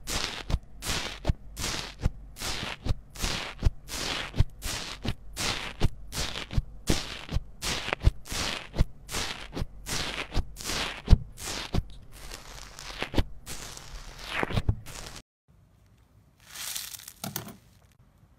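White slime with fruit fimo slices is pressed again and again with the head of a small toy microphone, making short sharp squishes about twice a second. The presses stop suddenly about fifteen seconds in, and a brief rustle follows near the end.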